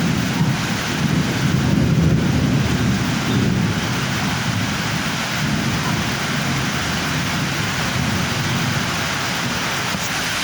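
Thunderstorm: steady heavy rain, with a low rumble of thunder over the first few seconds that dies away.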